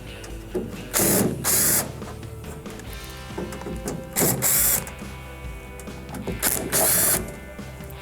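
Power screwdriver backing out Phillips screws from a microwave's sheet-metal bottom panel, run in short bursts, about six in all and mostly in pairs a few seconds apart. Background music plays underneath.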